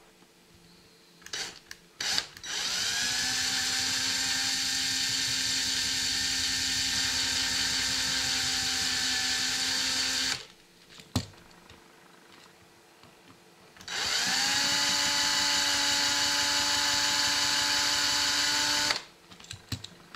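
Cordless drill boring into the base of a diecast Corgi Toys Aston Martin DB5 model. A few short trigger blips come first, then two long runs of several seconds each. In each run the motor whine rises quickly in pitch and then holds steady.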